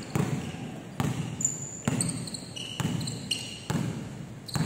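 Basketball dribbled on a hardwood court: six bounces at a slow, even pace, about one a second. Short high squeaks of sneakers on the court come between the bounces.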